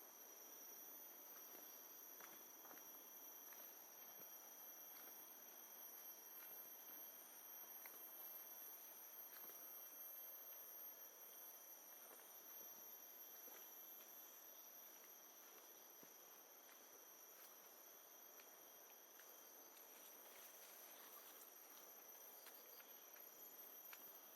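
Faint tropical insect chorus: several steady, high-pitched continuous tones over a soft, even hiss, with a few faint ticks here and there.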